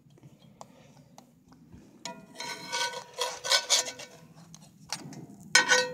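Metal spatula scraping across a cast-iron skillet as it slides under frying dough, the pan ringing with each stroke. It comes in one run of strokes about two seconds in and another near the end.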